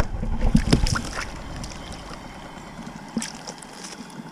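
Rustling and a few knocks from the camera being handled and set down, louder in the first second, then a faint steady hiss with occasional light ticks.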